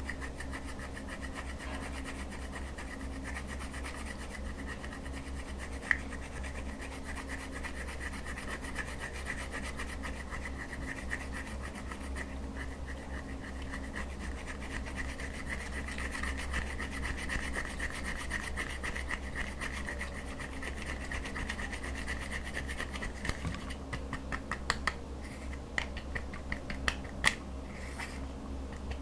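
A silicone spatula scraping pressed powder makeup out of a compact: a continuous dry scratching. Near the end it is joined by a run of sharp ticks as the powder is chipped loose.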